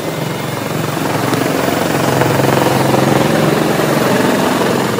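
Chinook tandem-rotor helicopter flying low, its twin rotors beating in a rapid chop. It grows louder over the first two seconds or so, then holds steady.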